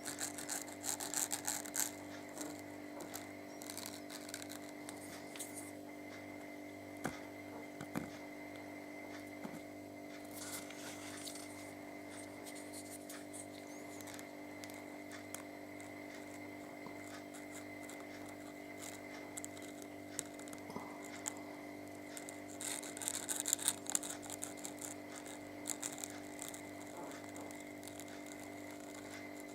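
Faint small clicks, scrapes and rustles of hand work on a loudspeaker, in a few short clusters, over a steady hum of several tones.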